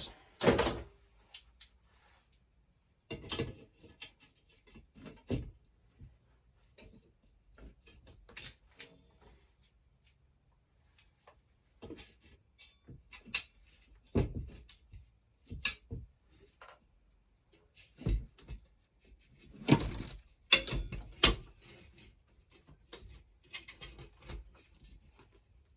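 Irregular metallic clicks, taps and knocks of hand tools working on a bicycle wheel's spokes and spoke nipples, with a run of louder knocks about twenty seconds in.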